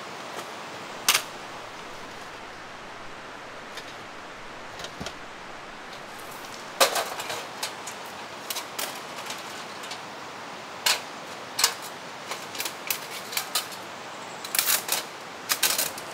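Irregular sharp clicks and knocks, some single and some in quick clusters, over a steady hiss.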